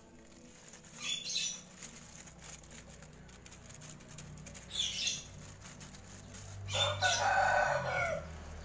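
A rooster crowing once near the end, a call lasting about a second, with shorter high-pitched sounds about a second in and near the middle.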